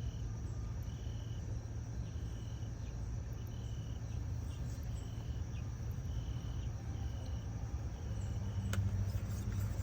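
A cricket chirping in a steady rhythm, about one short, even chirp a second, over a low steady hum. A single sharp click comes near the end.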